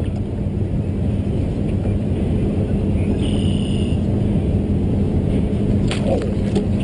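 Boat motor running steadily: a low rumble with a steady hum. A brief high-pitched tone sounds about three seconds in, and there are a few faint clicks near the end.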